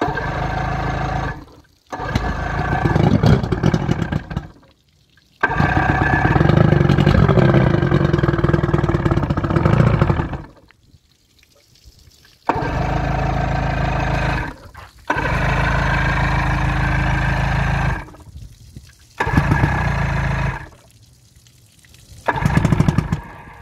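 115 hp Evinrude two-stroke V4 outboard motor, on a garden-hose flush attachment, cranked over in a series of about seven starting attempts. Each lasts one to five seconds and cuts off abruptly; it does not settle into a steady run.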